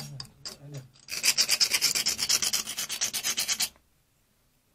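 Rusty steel water pipe being scrubbed by hand with rapid back-and-forth strokes for about two and a half seconds, then stopping: cleaning the corrosion off the pipe around a leak before gas welding it.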